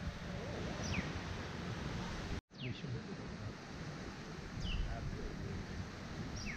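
Outdoor ambience of steady wind-like noise with a low rumble. A few short, high bird chirps fall in pitch, about four in all, spread through it. The sound cuts out for a moment about two and a half seconds in.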